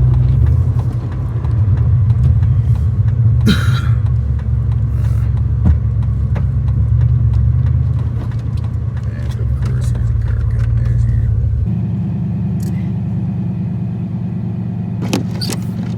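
Gasoline 3/4-ton pickup truck engine running under load with a steady low rumble, and a short clatter about three and a half seconds in. About twelve seconds in the rumble drops abruptly to a lighter, steadier hum.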